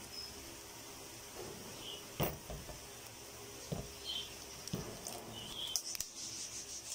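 Scattered knocks and snaps from handling a sneaker bound with rubber bands that clamp its freshly glued sole; the loudest comes about two seconds in. Faint short bird chirps sound in the background.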